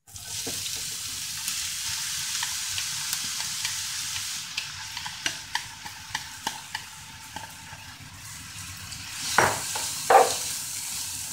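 Minced onions sizzling as they drop into hot olive oil in a frying pan, the hiss starting suddenly and running steadily. A spatula clicks and scrapes against the pan and bowl throughout, with two louder knocks near the end as the onions are stirred.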